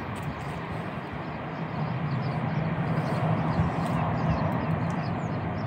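Steady low rumble and hiss of background noise, with a faint low hum that grows a little louder past the middle.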